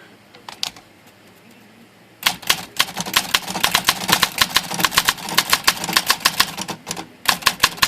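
Olympia SM-9 manual typewriter being typed on quickly: a couple of light clicks, then from about two seconds in a fast run of typebar strikes against its newly recovered platen roller, with a brief pause near the end before a few more strikes.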